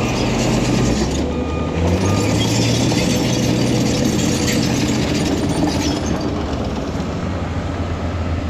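Heavy earthmoving equipment at work: diesel engines running steadily under a continuous metallic clatter.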